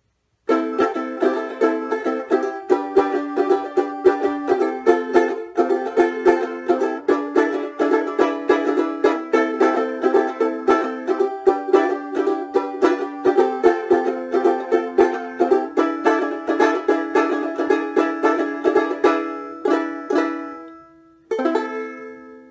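Kmise tenor-scale banjolele (banjo ukulele) played with quick, rhythmic picked notes and strummed chords, with a bright banjo ring. The tune trails off about twenty seconds in, then one final strummed chord rings out and fades.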